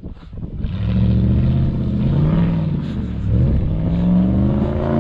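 An off-road truck engine revving up and easing off twice while driving across sand.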